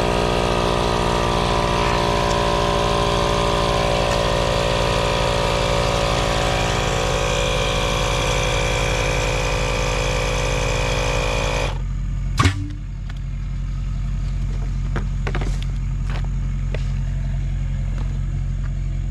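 An engine running steadily at idle, with a higher machine whine on top that cuts off suddenly about twelve seconds in. A sharp click follows, then a few light knocks, while the low engine drone carries on.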